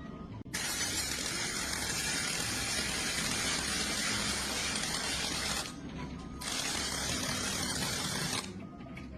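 A high-pressure spray hissing in two long bursts that start and stop abruptly, with a short pause between.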